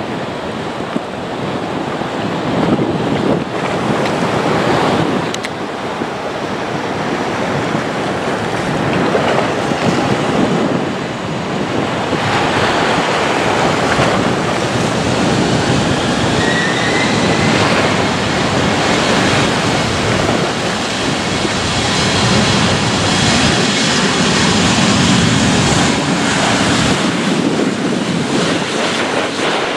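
Steady rushing noise with wind on the microphone. In the second half a faint, rising jet engine whine comes in as an aircraft approaches.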